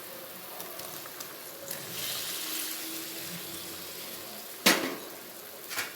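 Spicy tomato-onion gravy boiling in a pan as boiled potato cubes are added and stirred in, a steady bubbling hiss that swells for a second or so in the middle. Two sharp knocks near the end.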